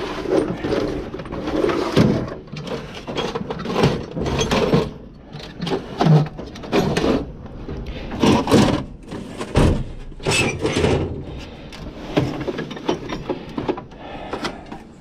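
Steel sockets and wrenches clinking and clattering irregularly as a hand rummages through a metal tool-chest drawer, with the drawer sliding open and shut.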